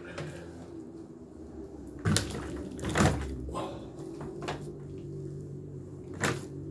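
A few knocks and thuds from a wooden stool and a bar of hanging water-filled bottles shifting as someone squats with them as a weight, the loudest about three seconds in, over a steady low hum.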